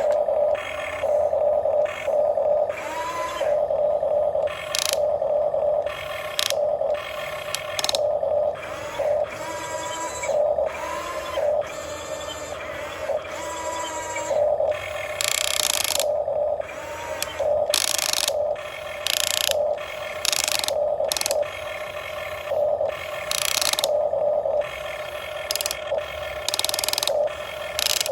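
Electric motors and gearboxes of a radio-controlled toy excavator working in stop-start bursts as it is operated, several short whirring bursts every few seconds over a steady mid-pitched hum.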